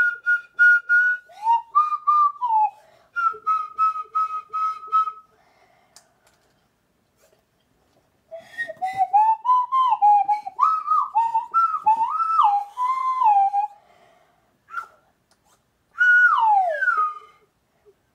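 A small toy whistle blown in short repeated notes, held notes and pitch slides, a rough wandering tune in three phrases with pauses between them, the last ending on a falling slide.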